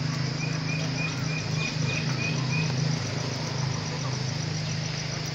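Insects chirping steadily in a fast, even, high-pitched pulse over a low steady drone; a bird repeats a short high note about seven times in the first three seconds.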